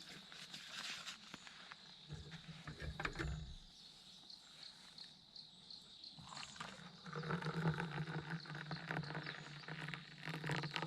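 Insects chirping in an even rhythm, about three chirps a second, with scattered clicks and a low hum that comes in about seven seconds in.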